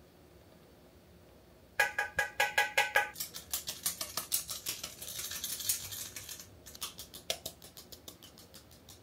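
Flour being sifted through a small handheld stainless-steel mesh sieve tapped by hand: quick, even metallic taps, several a second, starting about two seconds in. The first second of taps rings at a few steady pitches; a high hiss joins in the middle, and the tapping goes on lighter toward the end.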